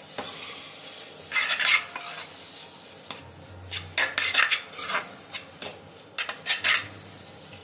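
Metal spatula scraping and knocking against a steel kadhai as noodle stuffing is stirred, in irregular bursts of strokes with short pauses between.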